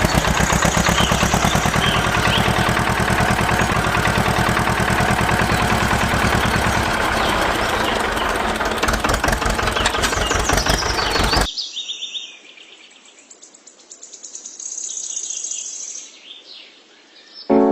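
A machine running with a loud, very rapid rattle that cuts off suddenly about eleven and a half seconds in, after which birds chirp.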